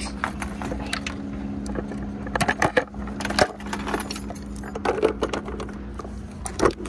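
Scattered plastic clicks and knocks of an engine-bay fuse box cover being handled and fitted back on, over a steady low hum.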